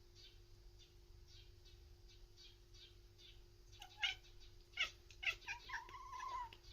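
Munchkin cat chattering at a bird it is watching: three sharp, high chirping calls about four to five seconds in, followed by a short squeaky mew that rises and falls in pitch.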